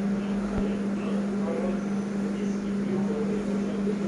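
A steady low hum that does not change, with faint voices behind it.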